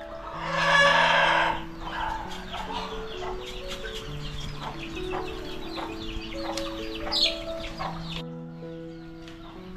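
A rooster crows once, loudly, about half a second in, with hens clucking afterwards over background music of held notes. Short sharp knocks come from a cleaver cutting pork ribs in a steel bowl.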